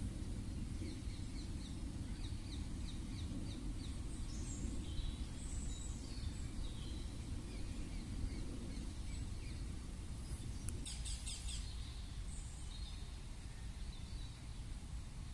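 Birds chirping over a steady low rumble of outdoor background noise: a quick run of repeated chirps in the first few seconds, scattered calls after, and a short flurry of chirps about ten seconds in.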